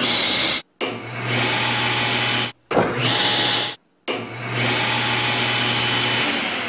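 A table saw's single-phase dual-voltage induction motor is started several times in clips cut back and forth, some running on 240 volts and some on 120 volts. Each start is a rising whir as the motor and blade come up to speed, then a steady run with a mains hum, broken by short dead-silent gaps between clips. Near the end the hum stops and the sound fades.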